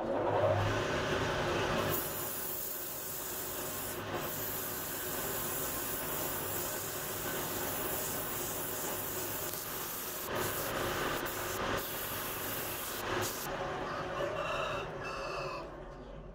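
A metal fire-bell gong spinning on a small lathe with abrasive paper pressed against its face: a steady scraping hiss of sanding over the hum of the lathe.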